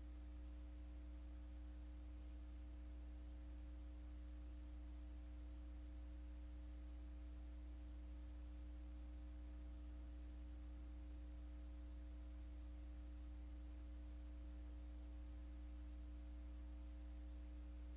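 Steady low electrical hum, with a few fainter steady tones above it over a faint hiss, unchanging throughout.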